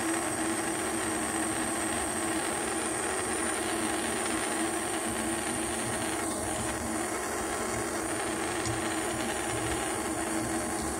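Jeweler's soldering torch burning with a steady hiss while heating the piece until the solder flows.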